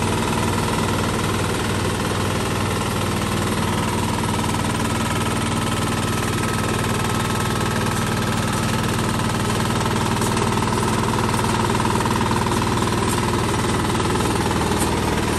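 The engine of a TL-1.4 MAX mini rice combine harvester runs steadily at a constant speed while the tracked machine drives and turns.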